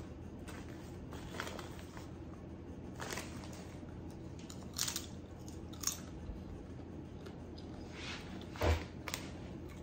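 A person biting into and chewing honey barbecue potato chips, a few separate crisp crunches spread out, the loudest near the end.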